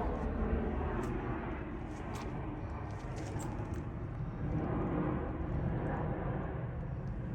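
Steady low outdoor background rumble, with a few faint clicks about one and two seconds in.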